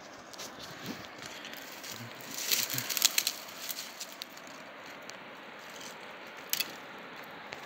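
Dry twigs and branches crackling and rustling as they are brushed and pushed aside. A dense run of quick crackles comes a couple of seconds in, and another brief crackle comes near the end.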